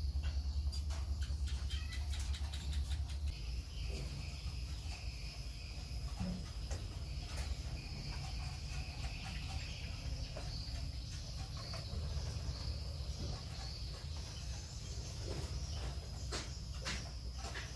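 Steady, high-pitched insect chirring in the background, with a low rumble that eases about three seconds in and scattered soft clicks and taps.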